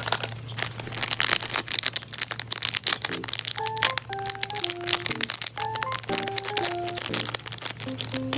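Rapid, dense crinkling and crackling of crinkly material being squeezed and handled, over a simple background melody.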